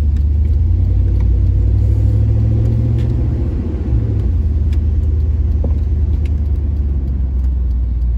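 Car engine and road noise heard from inside the cabin while driving: a deep, steady drone that dips slightly in pitch about four seconds in.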